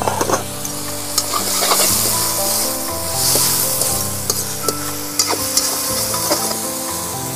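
Chicken pieces and onions sizzling in hot oil in a metal wok while a steel ladle stirs them, with scattered clicks and scrapes of the ladle against the pan; the sizzle swells about two to three seconds in. Background music plays underneath.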